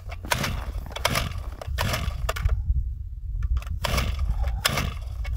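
Gas-powered ice auger being pull-started: sharp, irregular rasps and cracks from yanks on its recoil starter cord, with the engine not yet running. A low rumble sits under it throughout.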